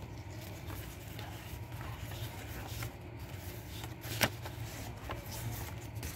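Banknotes being handled by hand: faint rustling and crinkling with small scattered clicks, and one sharper click about four seconds in.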